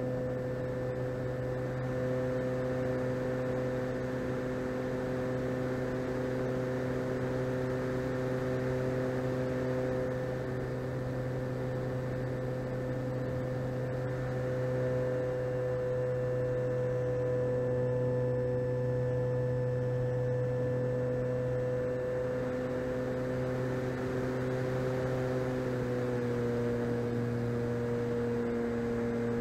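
Electric motor and propeller of an E-flite Cessna 150 RC plane droning steadily at cruise throttle, heard from on board over a rush of air. The pitch steps slightly lower about 26 seconds in as the throttle eases.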